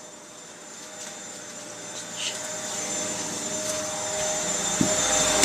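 Zanussi washing machine ramping up its spin: the motor whine and drum rush grow steadily louder and rise slightly in pitch as the drum speeds up.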